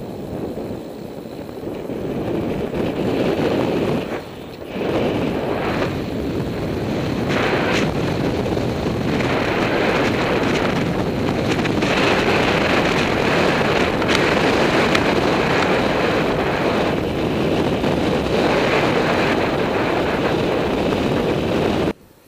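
Wind rushing over the microphone of a camera riding on a road bike at speed: a loud, steady roar with no tone in it. It builds over the first few seconds, dips briefly about four seconds in, and cuts off sharply just before the end.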